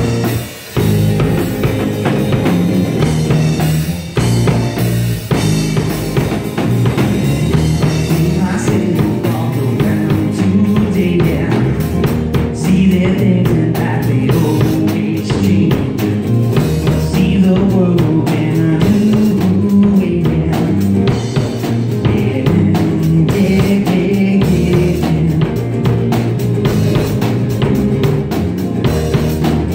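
Live electric rock band playing loudly: a Yamaha drum kit with bass drum and rimshots driving the beat under a red hollow-body electric guitar and a second electric guitar.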